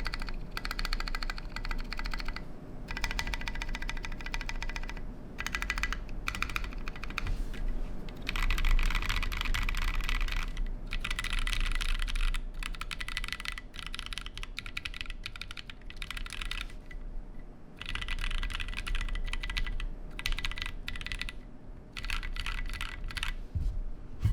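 Typing on a custom 60% mechanical keyboard with Drop Holy Panda tactile switches, GMK keycaps and a KBDFans 5° aluminium case. Fast runs of key clacks come in bursts, broken by short pauses.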